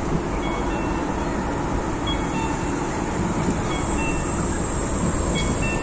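Steady rumble of downtown street traffic, with a few faint short high chirps scattered through it.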